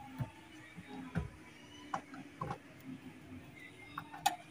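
Hand screwdriver driving the mounting screws of a car door speaker into the door: scattered light clicks and knocks of tool, screw and metal, with a sharper click near the end.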